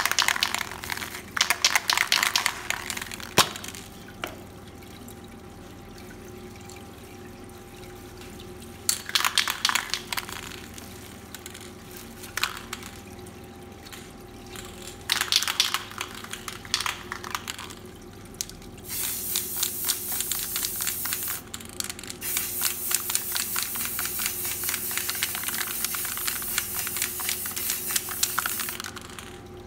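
Water curtain of a water-wash paint spray booth running steadily, with an aerosol can of fluorescent spray paint hissing in short bursts in the first half and in one long spray through most of the second half, broken once. There is a sharp click a few seconds in.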